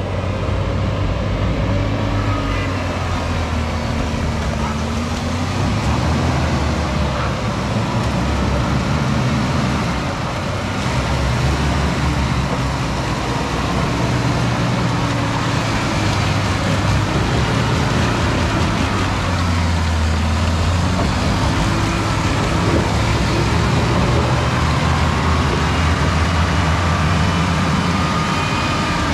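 Toyota Land Cruiser engine running under load, its revs rising and falling, with a higher whine that glides up and down along with it.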